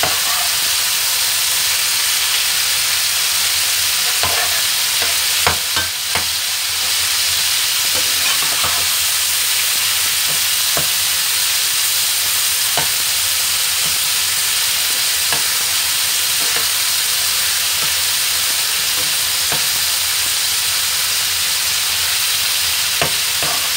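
Marinated chicken thigh pieces sizzling steadily in an uncovered nonstick frying pan over a high gas flame, frying dry rather than stewing in their own juices. A metal spatula scrapes and taps the pan as the pieces are turned, with a few louder knocks about five to six seconds in.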